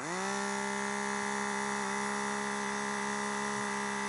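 The small electric air pump motor of a Nissei DS-500 blood pressure monitor starting up and running with a steady whining hum, quickly rising to speed at the start and then holding an even pitch.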